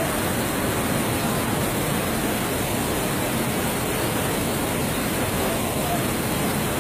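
Floodwater rushing down a street as a muddy flash-flood torrent, a loud, steady, unbroken noise mixed with heavy rain.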